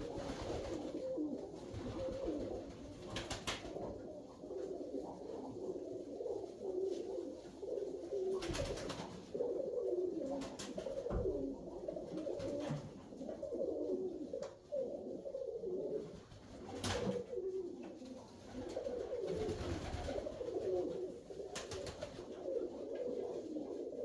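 Several Koros tumbler pigeons cooing without pause, their low calls overlapping. A few short sharp sounds cut in now and then.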